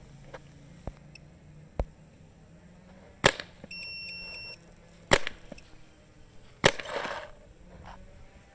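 Warped Sportz 2002 Dark Angel LCD paintball marker firing three sharp shots about a second and a half apart. A short electronic beep, typical of a chronograph reading the shot, sounds just after the first shot.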